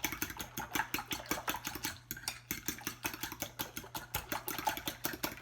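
Fork whipping eggs in a bowl: quick, rhythmic clicks of the tines against the bowl, about seven or eight a second, with a brief pause about two seconds in.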